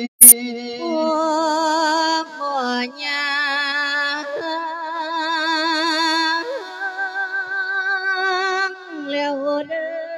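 A Thai Buddhist monk singing a verse sermon: one voice in a slow melody, holding long notes with a wavering vibrato and stepping between pitches. A sharp click sounds just after the start.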